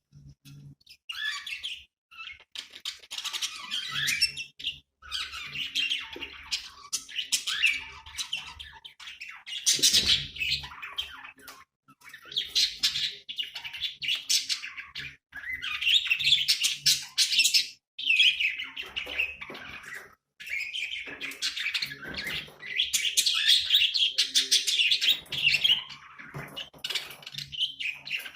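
Budgerigars chattering and warbling, with chirps and squawks, in phrases of a few seconds broken by short pauses.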